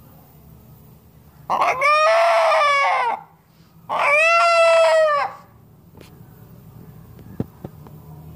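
A black desi rooster, held in the hands, gives two long, loud calls about a second apart.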